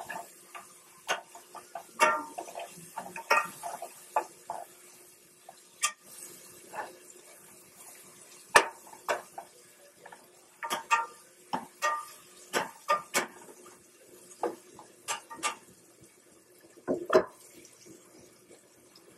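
Sliced onions sautéing in a copper-bottomed stainless steel pan, stirred with a utensil that clinks and scrapes against the pan at irregular intervals over a faint sizzle.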